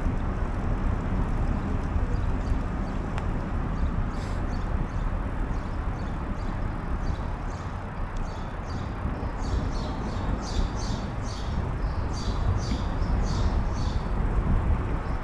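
Steady wind and rolling noise from riding a bicycle. In the second half a run of sharp, high clicks comes at about three a second.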